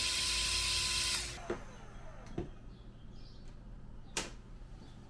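Electric heat gun running with a steady fan blow, heating heat-shrink tubing on a wire end, then switched off about a second in and winding down. A few light knocks follow.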